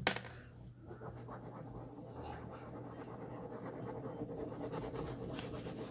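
A sharp click, then steady scratching and rubbing close to the microphone.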